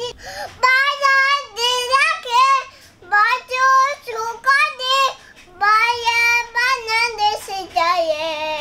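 A young child singing a tune alone, with no accompaniment, in short phrases of held notes with brief breaks between them.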